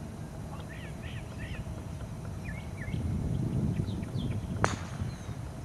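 A driver striking a golf ball off the tee: a single sharp crack about four and a half seconds in. Birds chirp throughout.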